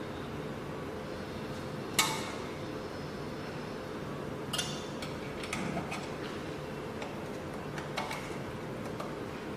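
A few sharp metallic clicks and taps as small parts are fitted into an SEC-E9 CNC key cutting machine, the loudest about two seconds in, over a steady low machine hum.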